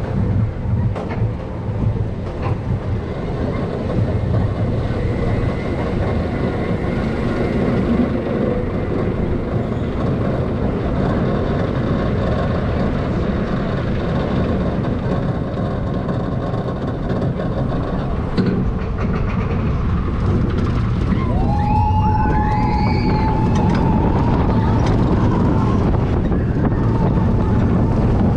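Roller coaster train running along its track: a steady, loud rumble of wheels on rails. A held high-pitched squeal stands out for a few seconds about three-quarters of the way through.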